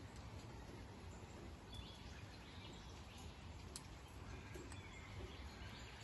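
Faint outdoor background noise: a steady low rumble, with a few faint bird chirps now and then.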